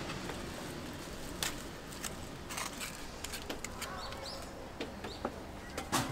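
Faint clicks and scrapes of a metal spatula scooping whipped cream from a steel tray and spreading it on a waffle, a few light clicks spread through, over a steady low background hum.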